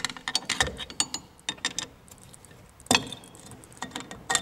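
Pry bar or screwdriver clicking and scraping against a steel drum brake adjuster and back plate as the adjuster is levered off, with a sharp metal knock about three seconds in.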